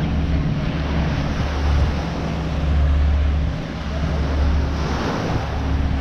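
Small ocean waves breaking on a sand beach, mixed with wind buffeting the microphone as a steady low rumble.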